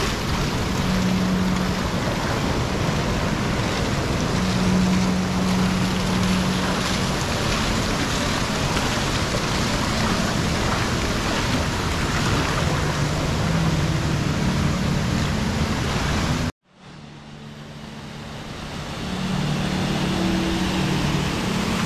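Steady rushing of water from a spa pool's bubbling jets and an artificial rock waterfall. The sound cuts out abruptly about two-thirds of the way through, then fades back in over a couple of seconds.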